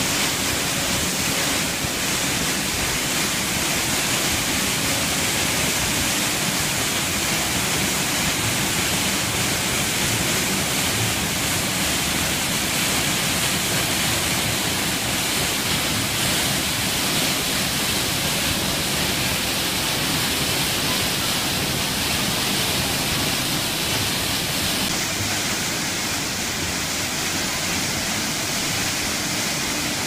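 Steady rush of a small waterfall pouring onto rocks and into a stream, slightly softer near the end.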